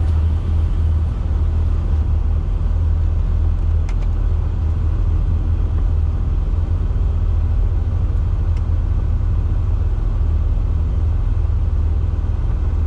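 Turbocharged 2JZ straight-six in a VH Commodore idling with a steady low rumble, not revving.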